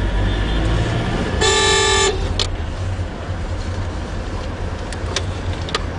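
A vehicle horn honks once for under a second, about a second and a half in, over the steady low rumble of the car's engine and road noise heard from inside the car. A few short clicks follow later.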